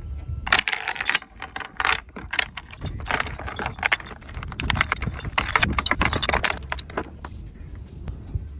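Steel anchor chain clattering link on link as it is hauled by hand out of a boat's chain locker and piled on the fibreglass deck hatch: dense, irregular rattling that stops about seven seconds in.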